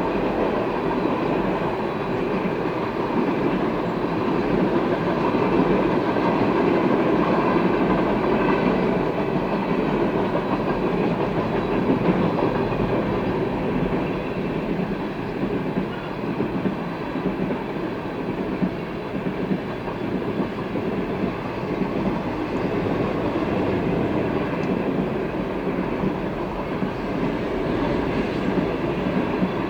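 Freight train cars rolling past at steady speed: a continuous rumble of steel wheels on rail that holds at one level.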